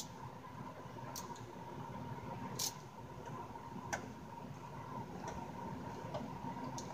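A few sparse, light clicks of small amplifier parts being worked loose by hand during disassembly of a Yamaha THR10 guitar amp, the loudest about two and a half seconds in. A faint steady hum sits underneath.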